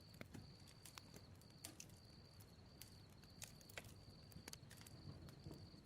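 Faint crackling of a bonfire: sparse, irregular small pops and snaps.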